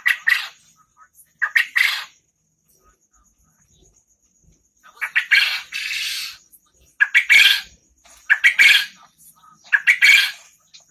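Quail calling in full voice: about six short, harsh calls, one every second or two, with a longer drawn-out call near the middle.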